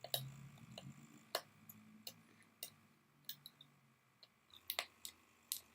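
Small, sharp clicks and ticks of a tiny precision screwdriver working the screws inside an opened smartphone, about a dozen at irregular intervals.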